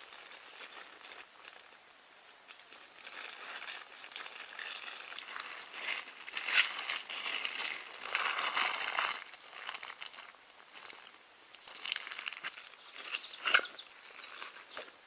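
Crinkling and rustling, as of material being handled, coming in irregular bursts with a few sharp clicks, the sharpest near the end.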